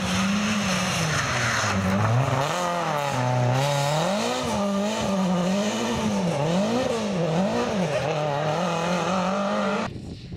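Renault Clio rally car going through a stage on a wet road, its engine revs rising and falling several times in quick succession over the hiss of tyre spray. The sound cuts off suddenly near the end.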